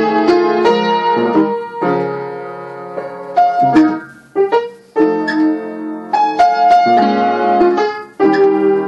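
Background piano music: chords and single notes struck and left to ring, thinning to a few quiet notes about halfway through before fuller chords come back.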